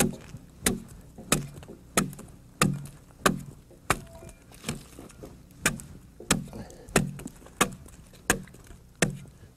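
Broad axe hewing a scored log, chopping slabs of wood off down to the line. A steady run of easy chops, about three every two seconds, each a sharp knock into the wood.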